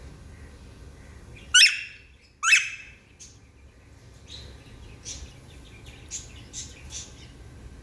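Pet parrot calling: two loud calls about a second apart, then a run of softer short chirps.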